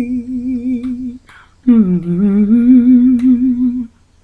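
A woman singing a hymn unaccompanied with vibrato. She holds a note for about a second, pauses for a breath, then sustains a long note that scoops up from below and holds steady, ending just before the end.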